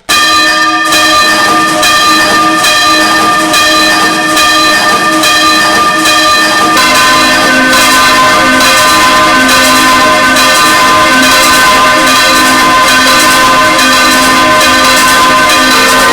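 Several church bells ringing together in a dense stream of overlapping strikes that starts abruptly at full loudness. The mix of pitches shifts about seven seconds in.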